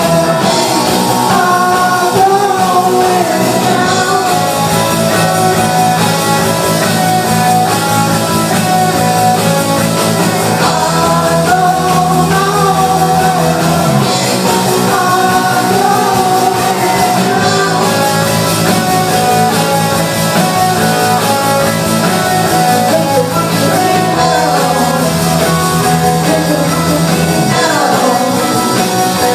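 Live rock band playing a song, loud and steady: guitars over a bass line that changes every few seconds, with singing.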